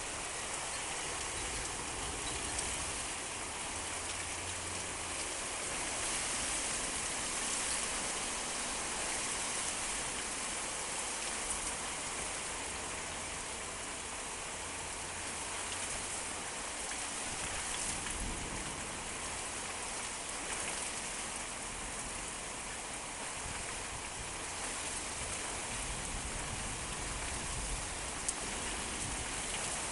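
Heavy storm rain pouring down steadily, a constant even hiss of rain striking surfaces.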